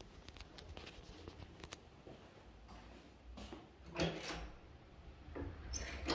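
Metal lever handle on an interior door pressed down and the latch clicking about four seconds in, followed by the door being pulled open near the end, with a few light ticks before it.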